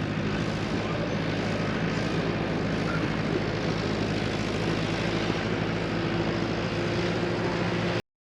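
Engine of earth-moving equipment running steadily at a constant speed, with a low, even hum. It starts and cuts off abruptly.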